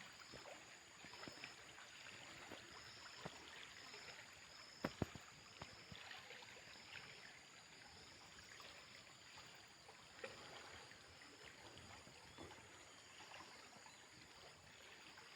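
Near silence: faint, steady flow of river water, with a few small clicks, two close together about five seconds in.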